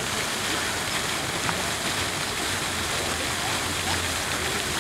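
Steady rush of running, splashing water, even and unbroken, with faint voices of passers-by underneath.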